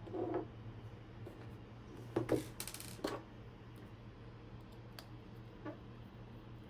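Light clicks and knocks of small tools and parts being handled, with a cluster of them about two to three seconds in, over a steady low hum.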